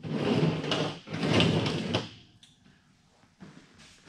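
Two rough scraping, sliding noises, each about a second long, as the thin sheet-metal duct is handled and shifted on the heater box. A small click follows near the end.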